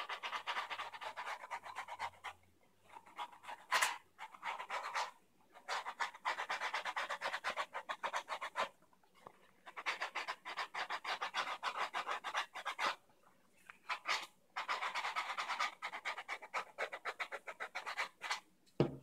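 Coarse sandpaper rubbed by hand in quick back-and-forth strokes around the inside edge of an EVA foam piece, smoothing the rough knife-cut surface. The scratching comes in runs of a few seconds with short pauses between them.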